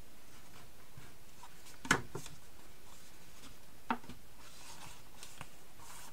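Scored cardstock being folded and pushed into a box shape by hand: soft rustling and rubbing of card, with two sharp taps about two seconds apart.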